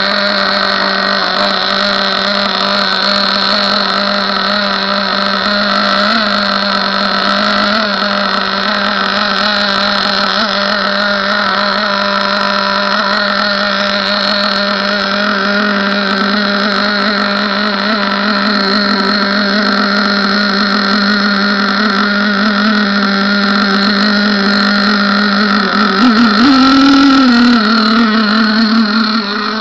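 OS .18 TZ glow-fuel model boat engine with a tuned pipe, running steadily at one pitch. Near the end the pitch briefly rises and dips before settling again.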